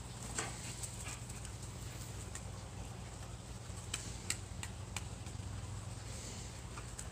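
A dog chewing and tugging at a thick rope swing: faint scattered clicks and rustles, a few sharper ones around four seconds in, over a low steady hum.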